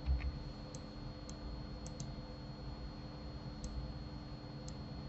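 Faint, scattered clicks from a computer mouse and keyboard, about six over five seconds, with a low thump right at the start. A steady low electrical hum runs underneath.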